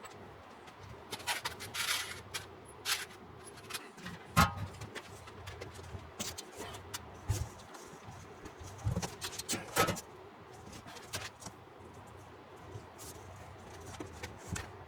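Irregular knocks, taps and scrapes of hand work fitting a sheet of textured wall paneling, with the sharpest knock about four and a half seconds in and a cluster of them around nine to ten seconds.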